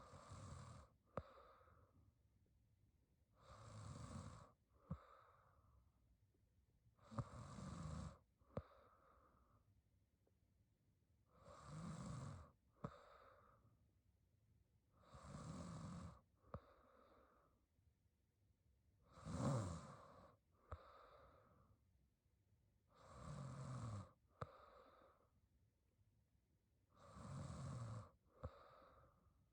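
A young woman snoring quietly in her sleep, about one snore every four seconds, each followed by a softer breath out, with small sharp clicks between some breaths.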